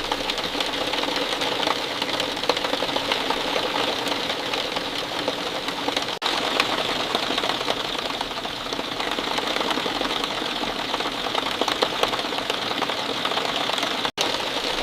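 Steady heavy rain, a dense patter of countless drops hitting a surface, briefly cutting out for an instant twice.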